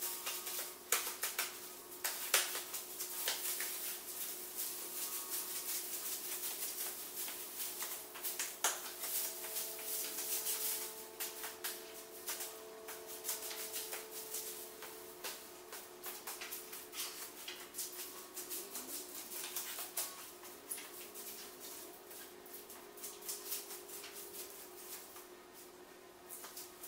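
Loose VHS magnetic tape rustling and crackling as it is handled and trodden on: a dense, irregular patter of small crinkling clicks that thins out towards the end, over a faint steady hum.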